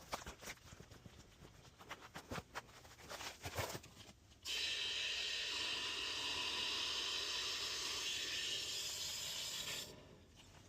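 A few light knocks, then water rushing through a valve as the water is turned back on to the repaired PVC main line: a steady hiss that starts suddenly about four seconds in and cuts off after about five seconds.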